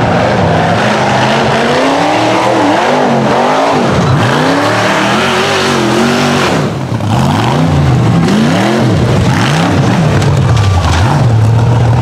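Rock bouncer buggy's engine revving hard again and again, its pitch surging up and dropping back in quick swings as the throttle is worked under load. Near the end it holds a steady high pitch.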